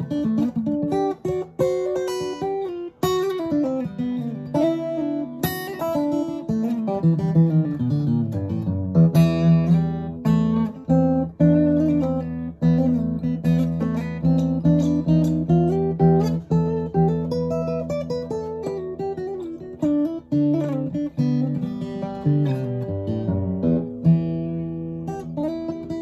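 Martin DRS-1 Road Series dreadnought acoustic guitar being picked: a continuous run of single melody notes, with a low bass note ringing under the melody from about a third of the way in.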